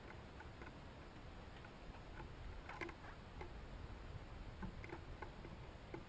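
Faint, irregular light taps and ticks of small birds pecking at seed on a wooden rail, with the strongest tap a little before the middle.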